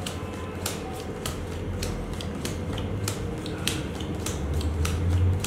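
Playing cards being dealt one at a time from a deck onto a wooden table: a quick, irregular run of light card snaps and slaps, several a second, over a low hum that swells near the end.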